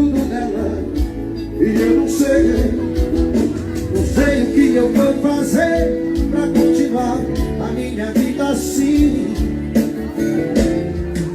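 Live seresta music: an electronic keyboard plays a melody over a steady drum beat.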